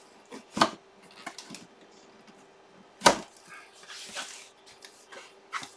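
Cardboard replica-helmet box and its plastic bag being handled: two sharp knocks, about half a second in and about three seconds in, with plastic crinkling around four seconds in, over a faint steady hum.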